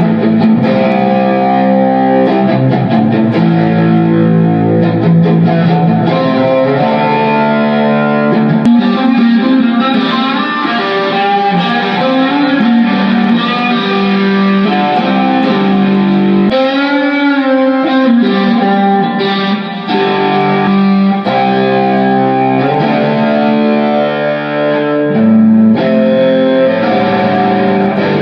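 Electric guitar, a homemade Frankenstrat tribute, played through a distorted amp with a dirty, grungy tone: sustained chords and riffs, with a wavering, wobbling note about sixteen seconds in.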